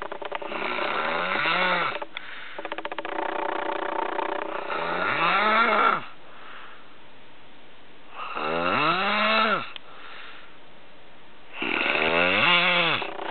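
Snoring in a steady rhythm: four loud breaths about three and a half seconds apart. Each has a rattling stretch and a pitched moan that rises and falls in tone over about a second and a half.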